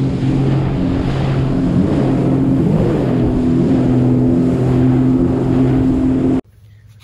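Sea-Doo personal watercraft running at speed across open water: a steady engine drone over rushing wind and water noise, cutting off suddenly near the end.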